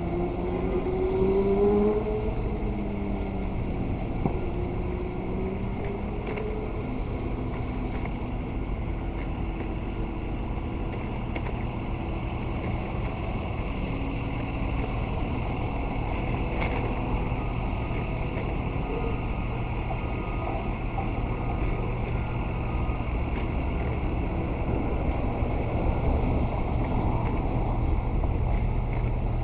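Street traffic on a busy road: a steady low rumble of passing vehicles, with one engine rising and falling in pitch in the first few seconds.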